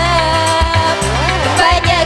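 Live orgen tunggal (single-keyboard band) music played loud through a PA. A held melody line bends in pitch over a repeating bass pattern and a steady drum beat.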